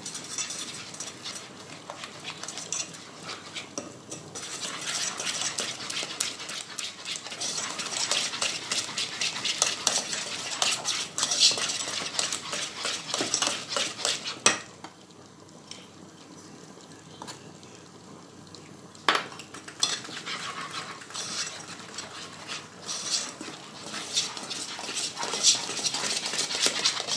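Wire whisk beating flour into a thick chocolate cake batter in a metal saucepan, scraping and clattering against the sides of the pan in quick strokes. There is a quieter pause a little past the middle, and a few sharper knocks of the whisk on the pan.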